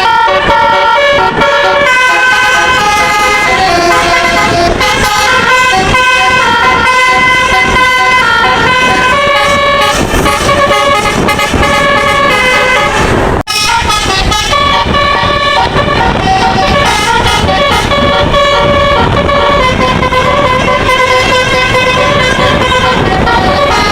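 A bus's musical telolet air horn, a Basuri-style multi-tone horn, playing a tune of stepped, held notes almost without pause. It cuts out for an instant a little past halfway, then carries on.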